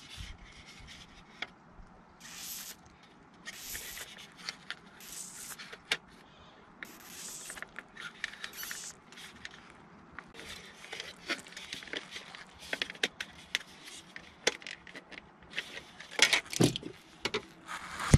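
Plastic clicks, rattles and short scraping rubs of a Honda Civic EK dashboard air vent being handled and pushed into a plastic radio fascia, with louder clicks near the end.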